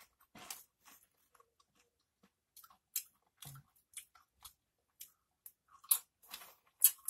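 Close-up chewing of Doritos tortilla chips with cheese dip: short, sharp, irregular crunches, loudest near the end.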